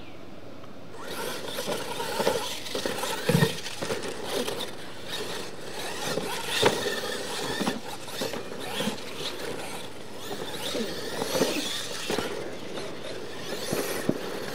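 Radio-controlled monster trucks racing over a dirt track with jumps. About a second in, their motors start whining and their tyres scrabble on the dirt, with repeated knocks as they land and hit the track.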